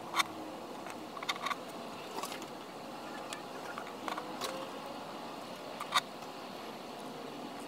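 Faint clicks and light rustles of fingers twisting stripped copper wire strands together to splice the emblem's wires, a few irregular ticks over a steady low hiss.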